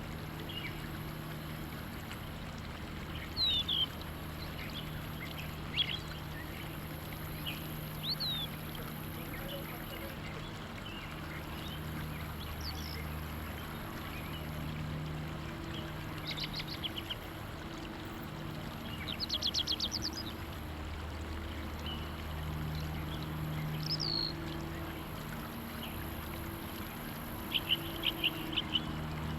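Birds chirping in short high calls and brief fast trills over a steady low mechanical hum.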